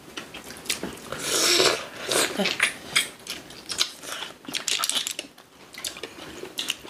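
Close-up eating sounds at a meal: chewing and mouth noises with scattered sharp clicks, and a longer noisy stretch about a second in.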